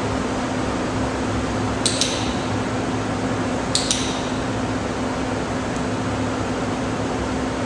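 Steady ventilation hum with a constant low drone. Two brief pairs of sharp metallic clicks come about two seconds in and again about four seconds in.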